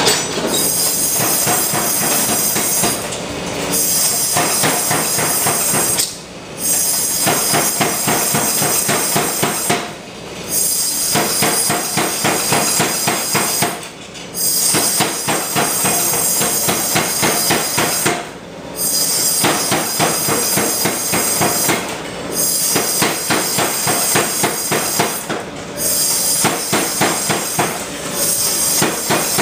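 Air-driven power hammer pounding hot steel in fast, even blows. The blows come in runs of three to four seconds, broken by brief pauses as the stock is repositioned.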